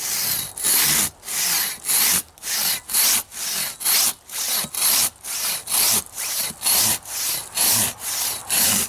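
Silky Katanaboy 650 folding saw cutting through a dry dead log with long full-length strokes, a steady rasp of the teeth in the wood at about two strokes a second.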